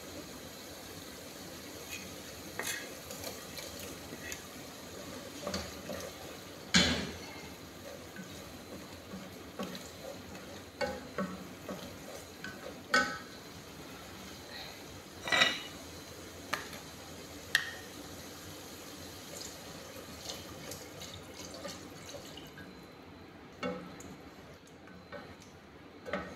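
Cookware clatter: a frying pan and a spoon knocking and scraping against a steel saucepan on a gas stove, with scattered sharp knocks, the loudest about seven seconds in, over a steady hiss.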